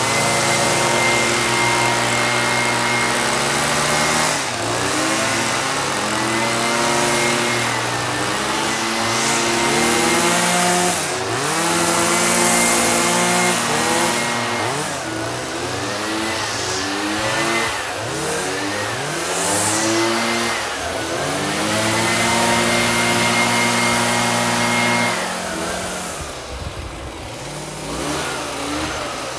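Small two-stroke engine revved up and down over and over, held at full speed for several seconds at a time, dropping to idle near the end before revving up again.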